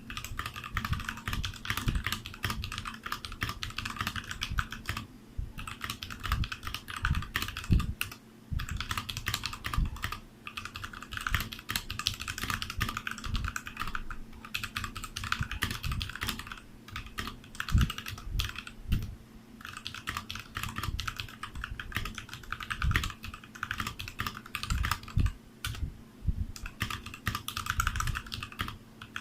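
Typing on a Royal Kludge RK61 60% mechanical keyboard: a fast, steady run of key clicks, with short pauses every few seconds.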